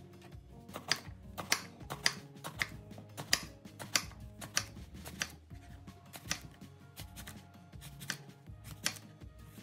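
A kitchen knife slicing an aubergine into thin rounds, the blade tapping the plastic cutting board in an even rhythm of about one cut every half second or so, over background music.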